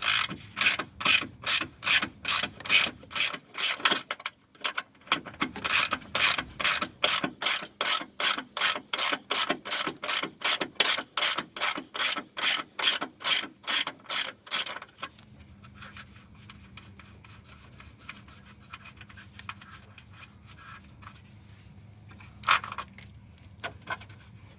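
Socket ratchet wrench clicking in quick back-and-forth strokes, about two to three a second, loosening the 15 mm nut on the negative battery cable terminal. There is a short pause about four seconds in, and the ratcheting stops about fifteen seconds in. Then come a few faint handling sounds and one sharp click near the end.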